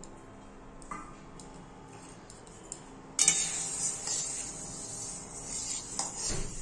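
Split moong dal being stirred in a dry karai to roast it lightly: the lentils scrape and rattle against the pan. A few faint clicks come first, then about three seconds in a steady hissy scraping starts suddenly.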